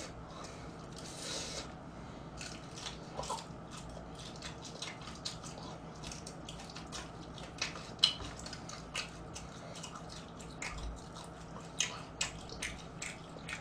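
A man eating Korean old-style whole fried chicken close to the microphone: scattered soft crunches and wet mouth clicks as he bites and chews, over a faint steady hum.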